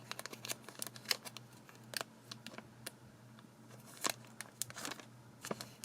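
Scissors snipping and plastic wrapping crinkling as a sealed trading-card pack is cut open: light, irregular clicks and rustles, the sharpest about one, two and four seconds in, over a faint steady hum.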